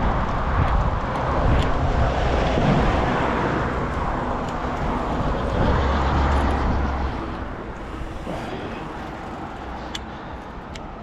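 Road traffic going by: a steady rush of car and tyre noise that swells a few times and drops away about eight seconds in.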